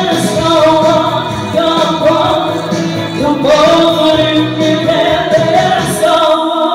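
A woman singing into a microphone with musical accompaniment, holding long notes that slide in pitch, with short breaks between phrases.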